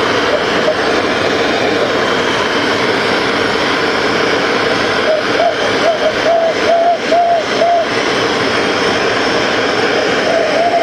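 Hand-held gas torch burning steadily with a loud hiss as it heats a copper boiler for silver soldering. A wavering tone comes and goes about halfway through.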